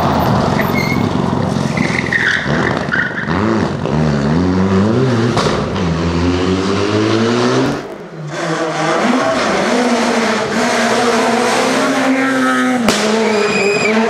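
A Mitsubishi Lancer Evolution rally car's turbocharged four-cylinder engine revs up and down through gear changes, with a brief tyre squeal about two seconds in. After a cut about eight seconds in, a Peugeot 208 rally car's engine runs at high revs, and near the end another rally car accelerates.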